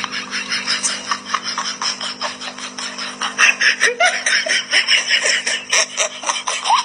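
Laughter over a quick, continuous clinking rattle of a heavy iron chain dragged across a tiled floor.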